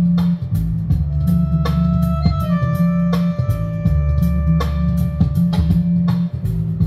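Music with electric guitar, bass guitar and drums playing through Peecker Sound A300 speakers (dual 6.5-inch woofers, 150 W), with strong bass and a steady drum beat.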